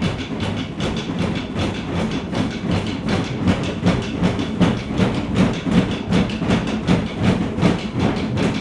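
Rhythmic hand percussion: noisy, shaken or scraped strokes at an even pace of about four a second, keeping up a steady beat.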